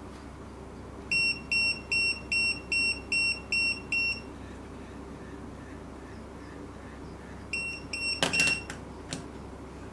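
Retekess TD158 coaster pager beeping eight times in a quick, even series as it is called, with two more short beeps near the end and a brief rattling buzz from its vibration motor. The buzz shows that the pager's vibration mode is switched on.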